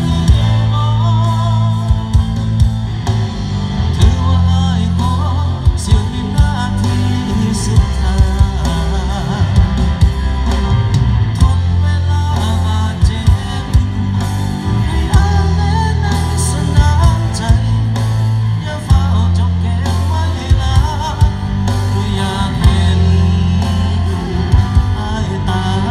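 Loud music with a singer over a heavy, sustained bass line and a steady drum beat.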